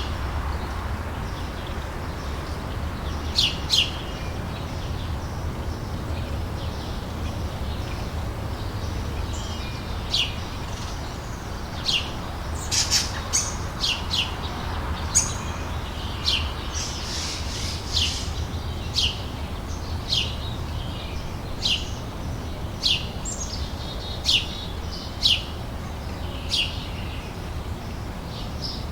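Outdoor summer ambience: a bird calling in short, sharp chirps, a pair a few seconds in and then about one a second for most of the rest, over a steady low rumble.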